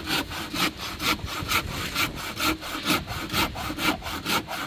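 Hand saw cutting through a wooden board in steady back-and-forth strokes, about two to three a second.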